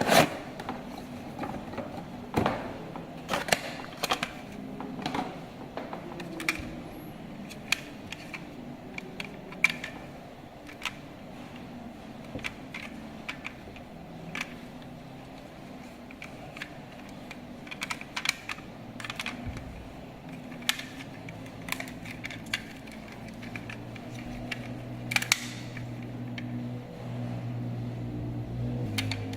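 Irregular light clicks and taps, as of small plastic parts being handled, over a low steady hum that gets louder near the end.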